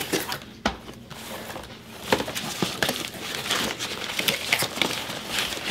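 Crumpled packing paper crinkling and rustling as a pistol is unwrapped from a plastic gun case, with scattered short clicks and knocks of cases and boxes being handled, one sharper click under a second in.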